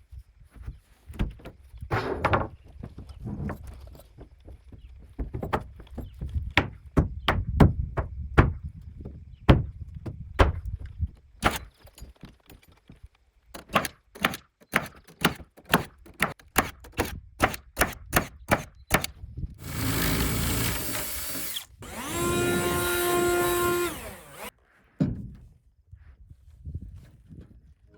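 Nails being driven one after another into wooden subfloor sheathing, a long series of sharp thunks that quickens to about two a second. Near the end a power saw runs twice for about two seconds each, the second cut ending with the motor's whine dropping as it winds down.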